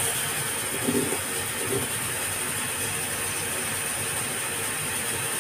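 Kitchen tap running steadily, a stream of water pouring into a pot of flour and shredded cabbage to make fritter batter.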